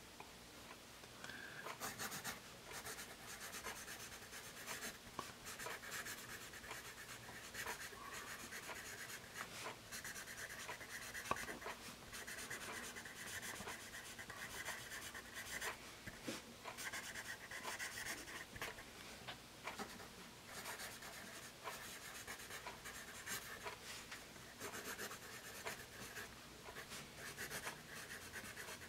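Faint scratching of a Paper Mate Mirado Black Warrior #2/HB graphite pencil writing cursive on grid paper, in quick strokes with brief pauses between words. The writing is not super smooth, with a slight scratchy drag, and there is one sharper tick partway through.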